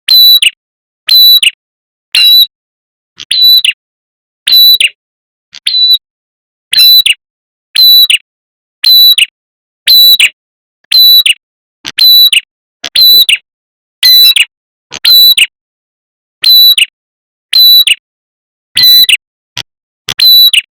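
Recorded lure call of a red-headed prenjak: a short, high, sharp call repeated steadily about once a second, with silence between calls.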